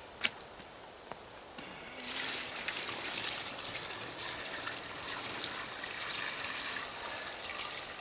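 Water pouring from a 5-gallon plastic bucket into the clothes-filled tub of a portable washing machine, starting about two seconds in and running steadily.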